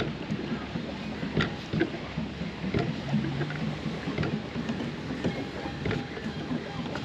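Plastic pedal boat under way: its paddle wheel churns and splashes the water steadily, with irregular knocks and clicks throughout.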